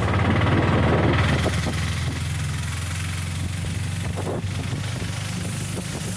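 A vehicle engine running with a fast, even low throb, louder in the first second or so and then steady.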